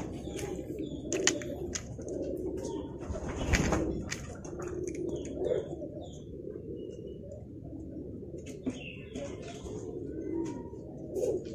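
Domestic pigeons cooing, a low rolling coo that goes on throughout, with scattered sharp clicks and short high chirps from small birds over it.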